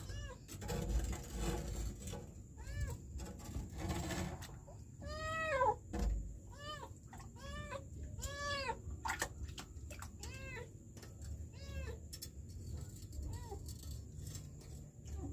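A kitten trapped down a sewer drain meows over and over in short, high arched calls, about a dozen of them, the longest and loudest about five seconds in. Rustling and scraping sound through the first few seconds, with a dull thump about six seconds in.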